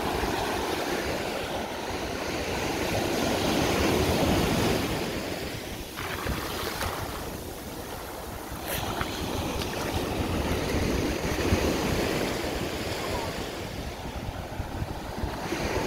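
Small waves breaking and washing up over the sand at the water's edge, swelling and fading every few seconds, with wind rumbling on the microphone.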